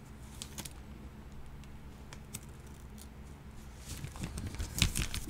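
Thin plastic cookie bag crinkling and rustling as it is handled, in light scattered crackles, then a louder cluster of crinkles and bumps about four seconds in.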